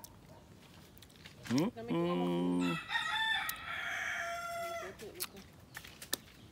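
A rooster crows once, a long call that starts about three seconds in and falls slightly at the end. Just before it comes a man's short low hummed 'mmm'. A couple of light clicks follow near the end.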